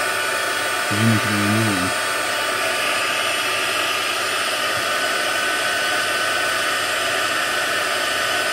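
Hot-air blower running steadily with a hiss and a high whine, heating the adhesive that holds the earpiece speaker and sensor assembly so that it softens and slips off.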